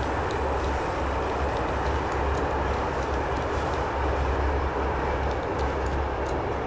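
Moving train running steadily: a deep, unevenly pulsing rumble with light clicks and rattles over it.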